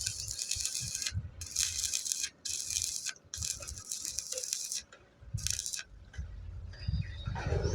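Stick-welding (SMAW) arc crackling in about five short runs, each cut off by a brief break before the arc is struck again.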